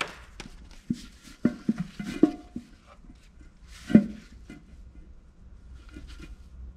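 Metal clinks and knocks of a wrench and nuts against the studs of a Lycoming O-320's oil sump as it is worked loose. A quick string of sharp clinks comes in the first half, a single louder knock about four seconds in, then a few faint taps.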